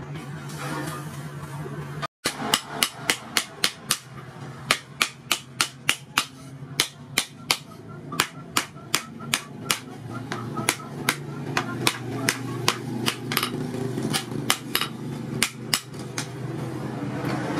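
Hand hammer forging a red-hot blade of disc-plough steel on a steel post anvil: a long run of sharp, ringing blows about two a second, with a few short pauses. The blows start about two seconds in, after a steady hum.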